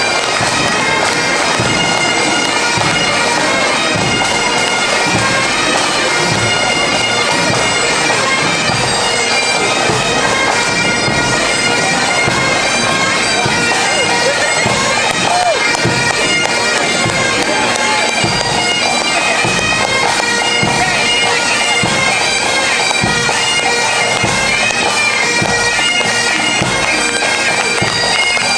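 Pipe band playing a march: Highland bagpipes sound their steady drones under the chanter melody, with a bass drum beating regular time.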